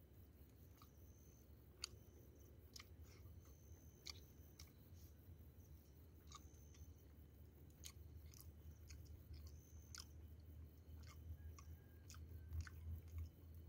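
Faint chewing and mouth clicks of someone eating, scattered soft smacks over a low steady hum.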